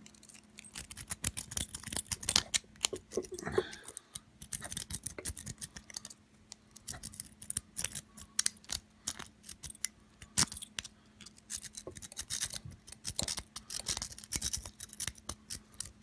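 Triple-peak lock-pick rake worked in a brass padlock's keyway under tension from a tension wrench: quick, irregular metallic clicks and scrapes of the pick over the pin tumblers. The pins are not setting, and the lock does not open.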